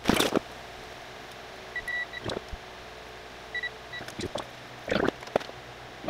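Digital multimeter in continuity mode beeping in short high chirps, in two brief clusters about two and four seconds in; each beep signals that the probe has found continuity between a wire and a connector pin. Rustling and clicking of the wiring harness being handled, loudest right at the start.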